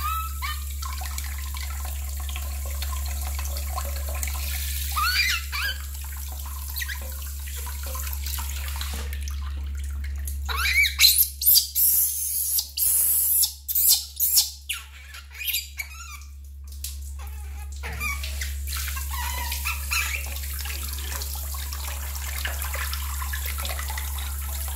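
Tap water running steadily into a metal basin while a baby monkey is bathed. About five seconds in, the monkey gives a short squeal. Around the middle comes a run of loud, high-pitched screams lasting several seconds.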